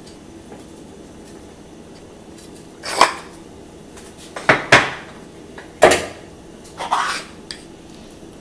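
A few short knocks and clatters, about five spread over several seconds, as salt and pepper are sprinkled by hand from a wooden salt box over eggs in a metal muffin tin.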